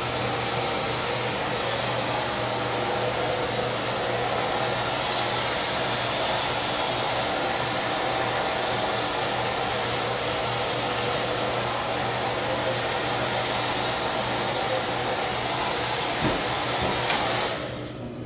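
Electric hair dryer blowing steadily with a low hum, shutting off near the end.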